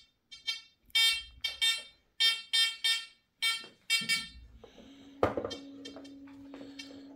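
Homemade Amiral XP-4 discriminating metal detector giving a quick run of short, buzzy beeps as a gold piece on a mineralized brick is swept past its search coil: it still picks out the gold through the mineral. The beeps stop about four seconds in, leaving a faint steady hum.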